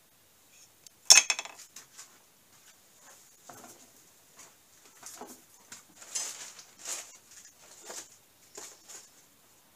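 Things being handled and set down on a wooden workbench: one loud clatter about a second in, then a string of lighter knocks, clinks and rustles.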